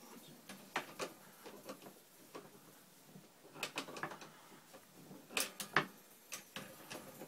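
Scattered metallic clicks and clinks, about ten spread irregularly: a spanner fitting onto and turning the top nut on the priming tube of a shotshell reloading press, with the tube held in locking grips.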